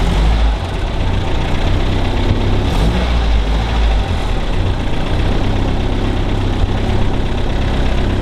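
Supercharged MG inline four-cylinder engine of a 1948 MG TC running steadily as the car drives at low speed in a low gear.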